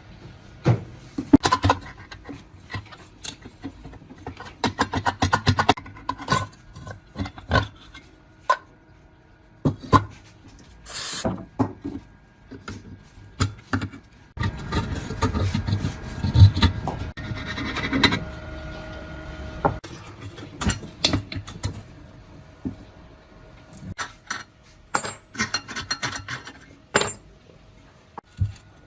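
Workshop handling sounds: scattered knocks and clicks with stretches of scraping and rubbing, as tools work on metal parts of a three-phase electric water pump being restored. A short hiss comes about 11 seconds in.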